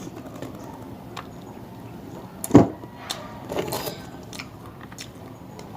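Scattered small clicks and taps of clam shells and dishes being handled while eating, with one loud knock about two and a half seconds in.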